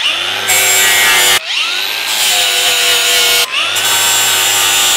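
Angle grinder with a flap disc grinding the edge of a steel plate. The motor's whine rises to speed and settles into a harsh grinding hiss, three times over with abrupt breaks between.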